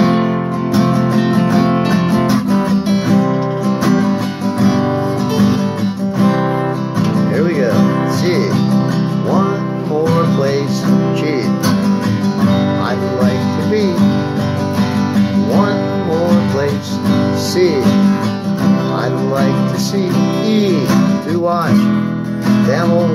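Acoustic guitar being played, a steady run of picked and strummed chords and notes.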